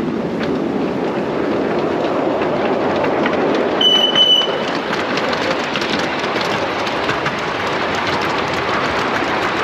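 Miniature steam train with passengers aboard, rattling along the narrow track. About four seconds in, the locomotive gives one short, high whistle as it approaches a train crossing.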